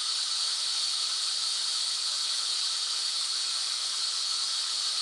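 Steady white noise: an even, unbroken hiss weighted toward the high end.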